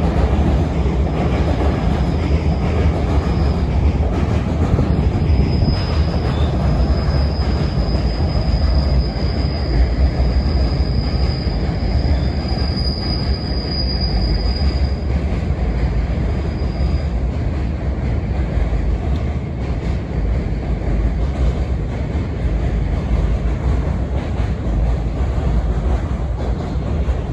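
Train running past at close range: a steady, loud rumble of wheels on rail throughout, with a high, thin wheel squeal for roughly the first two-thirds that fades out.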